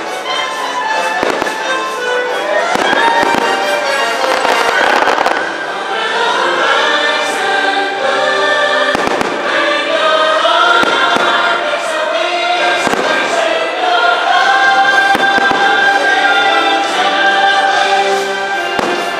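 Aerial firework shells bursting in an irregular series of bangs over loud show music with choral singing.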